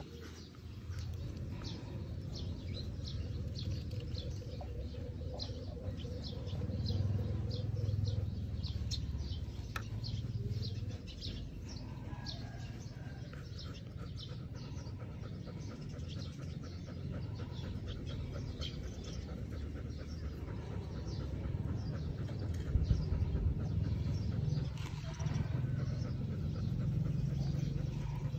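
Small birds chirping in the background, many short high calls, over a low steady rumble.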